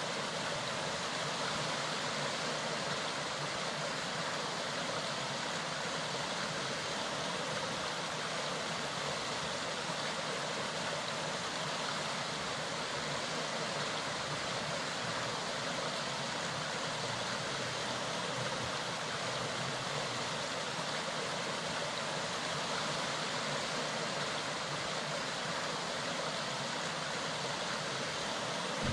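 Mountain stream flowing: a steady, even rush of running water.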